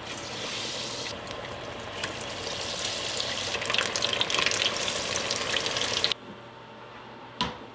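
Beer-battered crappie pieces deep-frying in hot oil in a stainless steel pot, sizzling and crackling. The sizzle grows louder as another battered piece goes in, then stops suddenly about six seconds in.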